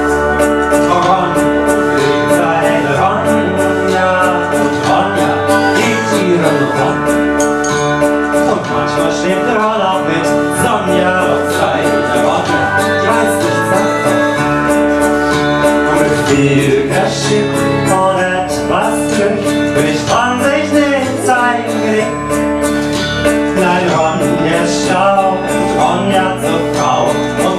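A song: a solo voice sings over instrumental accompaniment, amplified through a microphone.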